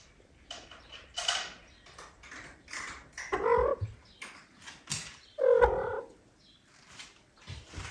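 Domestic cat meowing twice, about three and a half and five and a half seconds in, amid scattered clicking and rustling.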